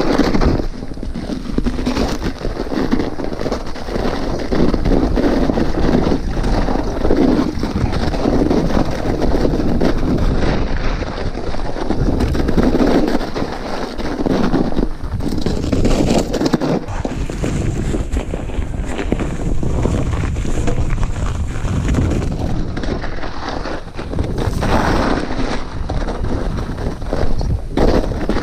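Mountain bike riding down a snowy trail, heard through a chest-mounted action camera: a continuous rush of wind on the microphone, with tyre noise over snow and the bike rattling over bumps.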